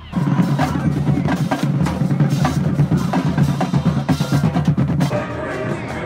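Marching band drumline playing: snare and bass drums in a fast, dense pattern. About five seconds in, the drumming drops back and steady tones come in.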